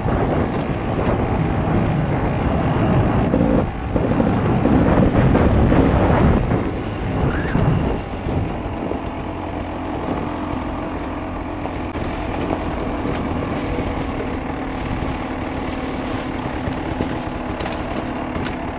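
Beta 300 RR two-stroke enduro motorcycle engine, heard from the rider's helmet: revving up and down under throttle for the first several seconds, then running steadier and quieter at low throttle from about eight seconds in.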